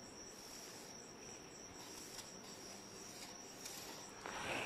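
Faint steady high chirring of a cricket, with a few soft strokes of a marker pen drawing on a whiteboard.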